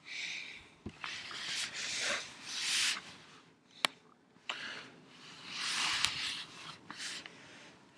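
Handling noise from a laptop being picked up and moved around: uneven rubbing and rustling swells, with a couple of sharp clicks.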